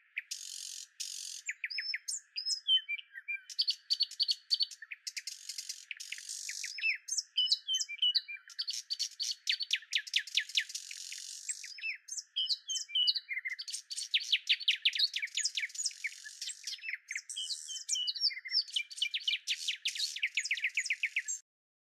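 Birdsong: several birds chirping and trilling in fast runs of short, repeated notes. It cuts off abruptly near the end.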